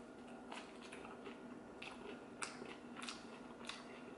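Faint chewing of a mouthful of pizza, with soft, irregular crunches about every half second.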